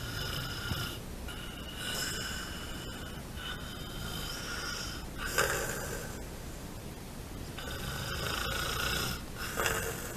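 Snoring with a whistling pitch, about six breaths in a row, each drawn out for a second or so.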